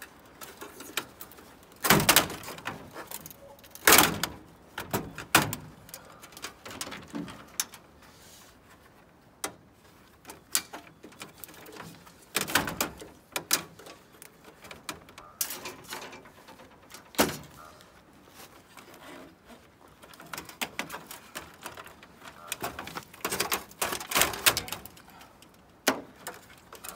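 Sheet-metal front panel and control console of a gas dryer being pried and pulled loose by hand, with scattered knocks, clunks and rattles as the retaining clips give way. Two sharp knocks a couple of seconds apart are the loudest.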